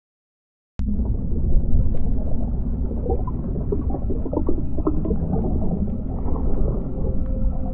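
Underwater ambience sound effect: a deep, steady rumble with bubbling and gurgling, cutting in abruptly out of silence about a second in. A held tone comes in near the end.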